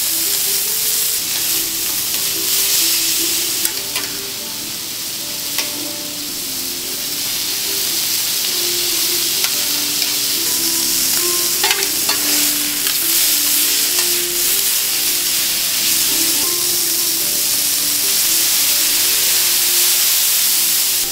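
Steak cubes sizzling on a hot teppanyaki steel griddle, a steady frying hiss, with a few sharp clinks of the metal knife and tongs against the plate. Quiet background music runs underneath.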